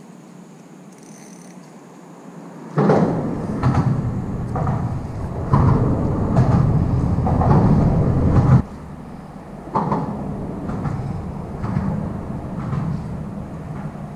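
Rumbling and knocking on the action camera's microphone, from wind and handling, starting abruptly about three seconds in and dropping off sharply past the middle, with a few fainter knocks after.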